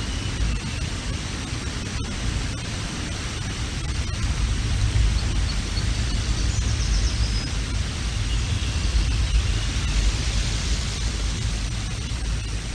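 Strong gusting wind buffeting an outdoor nest-camera microphone, a deep rumble that swells in the middle. Faint high bird chirps come through briefly about six to seven seconds in.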